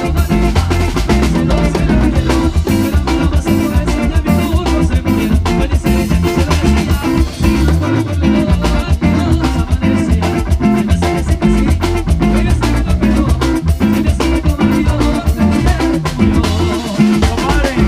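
Live cumbia band playing an instrumental passage with keyboard, electric guitar and drum kit over a steady dance beat. The bass drops out briefly about halfway through.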